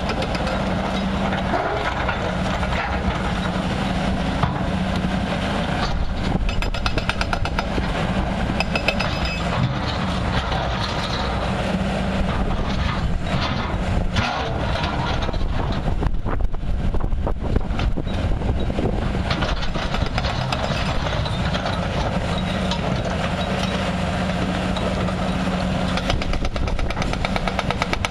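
Diesel engines of heavy crawler excavators running steadily, with the rapid pounding of a hydraulic breaker hammer on rock at times.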